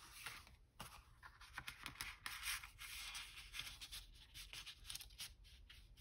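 Paper and card being handled: faint, irregular light rustling and scraping.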